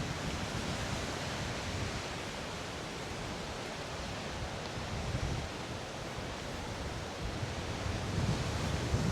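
Steady rush of the waterfall's water mixed with strong wind, with low wind gusts buffeting the microphone about five seconds in and again near the end.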